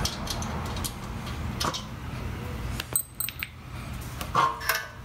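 Light metallic clinks and taps from the top mounting bolt and hardware as a motorcycle gas tank is worked off the frame. A ringing clink comes about three seconds in and another near the end.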